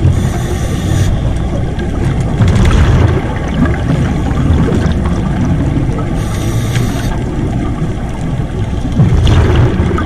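Scuba regulator breathing heard underwater over a steady low rumble. A hissing inhale comes at the start and again about six seconds in, and each is followed a couple of seconds later by a louder gurgling burst of exhaled bubbles.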